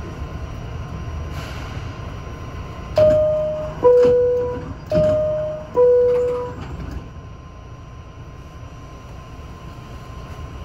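New York City subway car's door-closing chime: two descending two-note ding-dongs, about three and five seconds in, the signal that the doors are closing. A steady low hum from the train standing in the station runs underneath.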